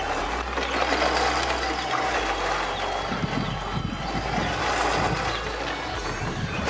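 Tamiya TT-02 radio-controlled car driving past on gravel, its electric motor whining and its tyres crunching over the loose stones.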